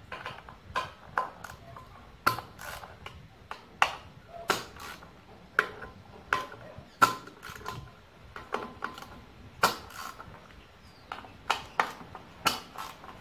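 Hand ratchet and socket working the bolts of an aluminium upper intake plenum: a run of irregular sharp metallic clicks and clinks, some with a short ring.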